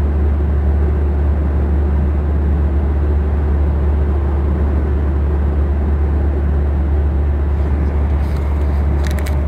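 Steady low drone of road and engine noise inside a moving car's cabin at highway speed, with a few light clicks near the end.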